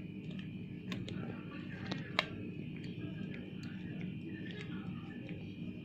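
Faint steady room hum with a few scattered light clicks and ticks from handling a piping bag while piping chocolate cream onto a cupcake in a paper liner.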